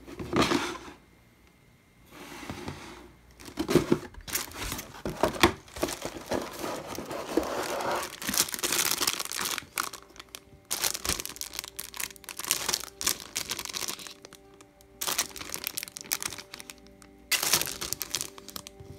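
Clear plastic bags of model-kit parts crinkling and rustling as they are handled, in irregular bursts. Soft background music runs underneath.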